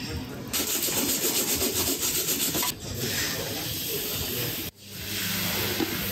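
Fast, repeated scraping, a hard tool rubbing across a surface, with a short sudden break about four and a half seconds in.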